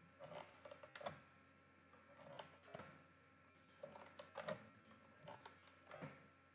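Faint, irregular clicks of a computer mouse and keyboard, in small clusters every second or so, over a faint steady hum.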